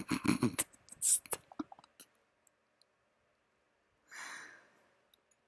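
A woman laughing quietly in short breathy pulses that die away within the first second, then a soft sighing breath out about four seconds in.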